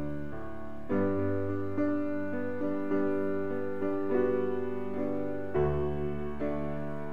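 Slow, gentle background piano music, with a new chord or note struck about once a second over a sustained low bass.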